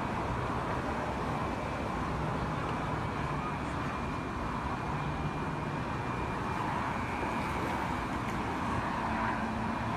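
Steady vehicle noise: engines running, with a faint high whine above a constant noisy hiss.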